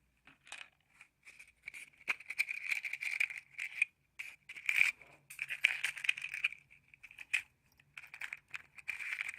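Matches and their matchbox handled close to the microphone: a run of small clicks, scratches and crackles in uneven bursts.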